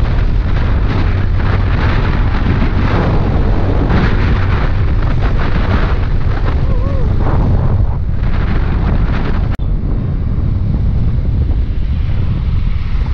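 Wind buffeting a helmet-mounted microphone on a motorcycle moving at highway speed, over the low noise of the engine and tyres. About two-thirds of the way through it cuts off abruptly to a somewhat quieter wind and road noise.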